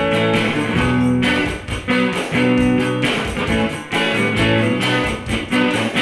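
Electric guitar strumming chords in an instrumental passage of a song, with no singing.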